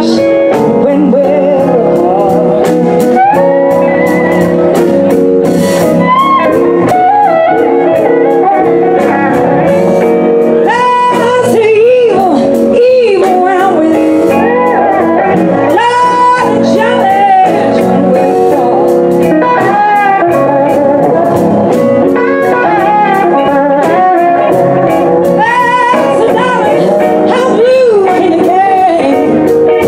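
Live electric blues band playing a slow blues: a woman singing over electric guitars, bass and a drum kit keeping a steady beat, with bending guitar lines throughout.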